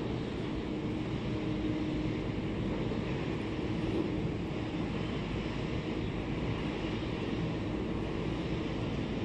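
Steady low background rumble with a faint hum, no distinct events.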